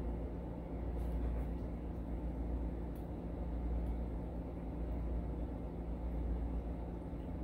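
Steady low rumble and hum of background noise, with a few faint, short ticks from tiny brass lock sliders being handled and fitted into a lock cylinder core.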